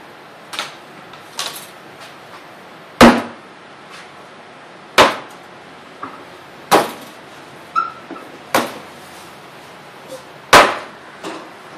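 Clay slabs being slapped and knocked down on a work table: about eight sharp knocks at irregular intervals, the loudest about three seconds in and again near the end.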